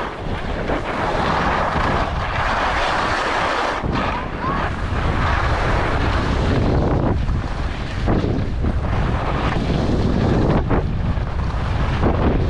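Wind rushing and buffeting over the microphone of a camera carried while skiing downhill. It makes a steady, loud roar with a deep rumble that swells and eases.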